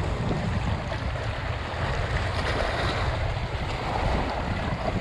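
Fast-flowing river water rushing and washing over bank rocks, with wind buffeting the microphone as a steady low rumble.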